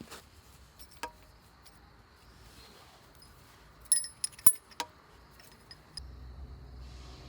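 Metal clinking, as of tools or engine parts knocked together: a single ringing clink about a second in, then a quick cluster of sharp, ringing clinks around four seconds. A low steady hum starts near the end.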